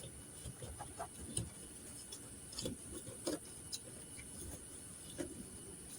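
Faint, scattered clicks and taps of hands working plastic car body trim and zip ties, over a steady faint high hiss.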